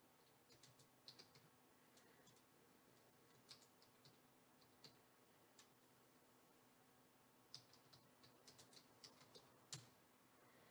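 Faint, irregular clicks and taps, a few at a time, with a quicker run of them near the end and one sharper click just before it.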